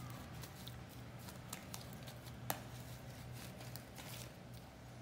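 Hands squeezing and kneading sticky, foamy slime made with glue and shaving foam: faint wet squishes and little crackles, with one sharper click about two and a half seconds in. The slime is firming up as the boric acid water activator takes hold.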